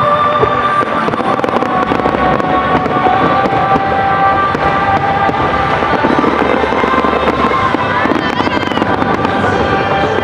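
Aerial firework shells bursting and crackling densely and without pause in a finale barrage, with music playing along underneath.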